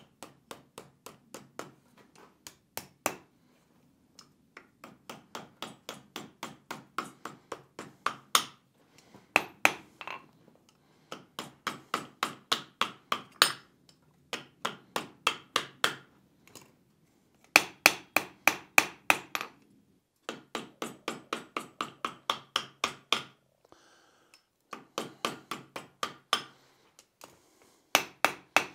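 Blacksmith's hand hammer striking a hot steel hinge piece over a cone mandrel on the anvil, in runs of quick ringing blows, about four a second, with short pauses between runs. The loudest run comes about two-thirds of the way through.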